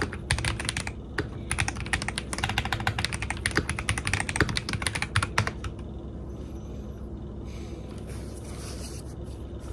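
Fast typing on a mechanical keyboard with Holy Panda tactile switches on a polycarbonate plate under Cherry-profile PBT keycaps: a dense run of keystroke clicks that stops a little over halfway through, leaving only faint scattered ticks.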